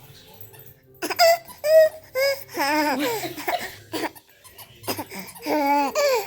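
A young child's high-pitched squeals and giggly vocal noises: a few short squeaks about a second in, then longer wavering, warbling cries.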